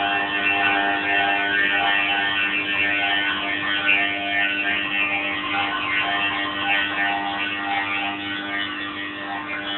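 Small milling machine running a pass on bassoon reed cane: a steady motor hum with a fluctuating hiss of cutting over it.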